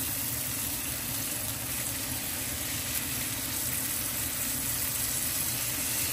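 Marinated paneer and soya chaap sizzling steadily in oil on a grill, with a steady low hum underneath.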